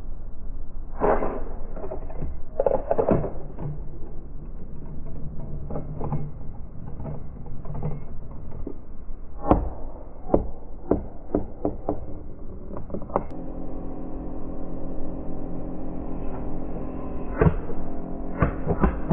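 A coin clattering through a wooden and plastic coin-bank maze: irregular knocks and clicks as it strikes the plastic levers and flaps, and, dropped in too fast, it is thrown back out. Background music with sustained notes comes in about two-thirds of the way through.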